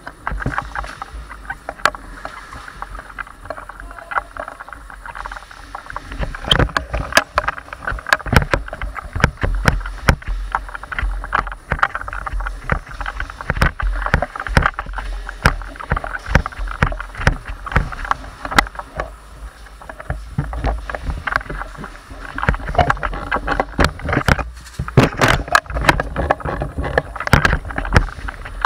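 Handling and movement noise from a rifle-mounted camera: constant rustling and rubbing of gear, with many irregular knocks and clicks as the player moves.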